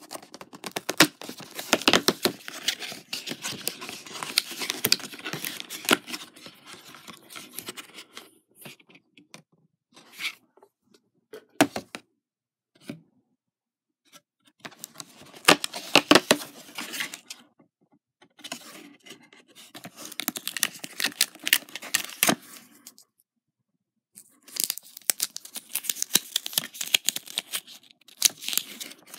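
Perforated cardboard advent-calendar doors being torn open and pried back, in several bouts of crackling tearing and scraping separated by short pauses.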